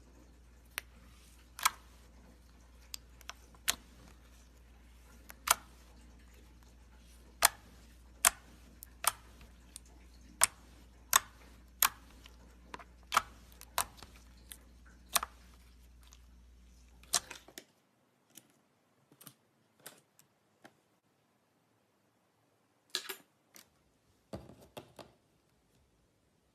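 Slime being worked by hand, giving sharp, irregular clicks and pops, roughly one a second. A low background hum cuts off about two-thirds of the way through, and after that the clicks come sparser.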